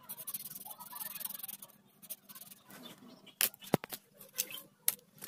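Marker tip scratching across paper for about two seconds as it colours, followed by a few sharp taps and clicks.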